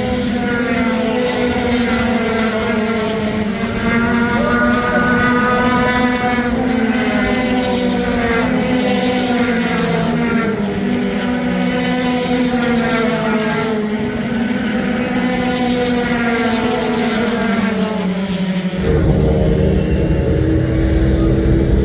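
A pack of USF Pro Series open-wheel race cars running on a short oval, their engines droning together with pitches rising and falling as cars pass. The sound changes abruptly about 19 seconds in.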